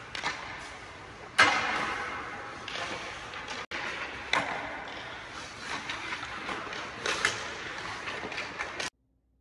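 Ice hockey shooting practice: sharp cracks of sticks striking pucks and pucks hitting the boards and net, each ringing on through the rink, over the scrape of skate blades on the ice. The loudest crack comes about a second and a half in, and the sound cuts off shortly before the end.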